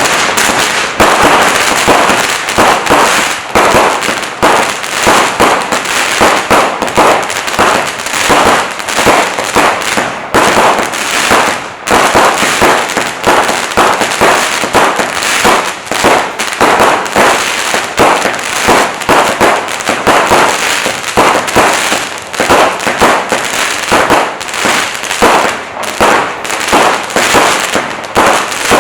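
Swarm 80s fireworks cake firing a fast barrage of about two shots a second: mine shots lifting to brocade and stars bursting to crackle and glitter, over a continuous crackling.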